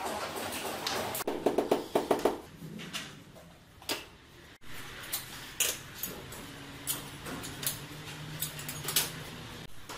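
Knocks and clicks of tile-laying work on a ceramic floor: a fast run of loud knocks about a second and a half in, then scattered single clicks and knocks, over a faint steady low hum.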